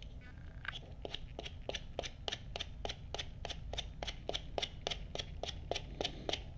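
A hand tool scratching back and forth over a leather strap, roughing up its slick surface so glue will hold. The strokes are short and regular, about three or four a second, starting just under a second in.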